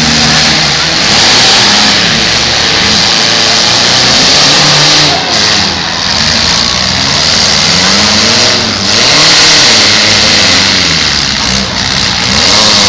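Several demolition derby cars' engines revving at once, their notes rising and falling and overlapping over a steady loud din.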